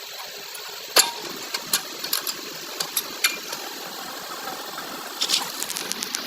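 A steady mechanical hum with several sharp clicks and knocks, the loudest about a second in and a quick cluster near the end.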